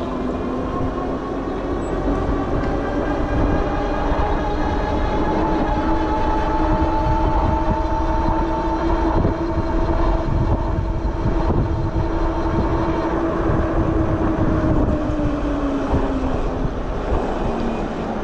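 Sondors Fold X e-bike's electric hub motor whining as the bike rides along, over a steady low rumble. The whine climbs in pitch over the first several seconds, holds steady, then drops a few seconds before the end as the bike slows.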